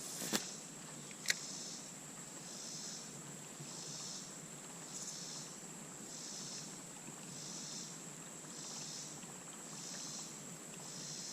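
Faint insect chorus: a steady high-pitched drone with a pulsing layer that swells about once every three-quarters of a second. Two sharp clicks sound in the first second and a half.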